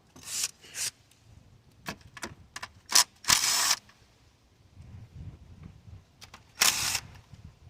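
Tools and engine-bay parts being handled: several sharp clicks and knocks, with a few short rasping bursts.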